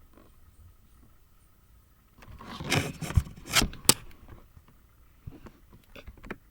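Close handling noise: scraping and rubbing that starts about two seconds in and lasts a couple of seconds, with three sharp clicks, then a few scattered small taps.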